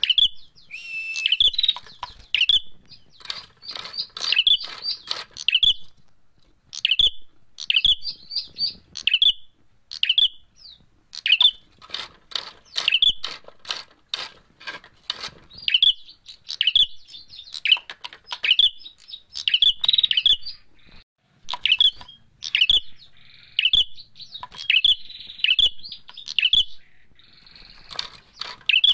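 Ashy tailorbird (prenjak merah) calling in agitated fighting mode: short, sharp notes repeated in quick clusters about once a second.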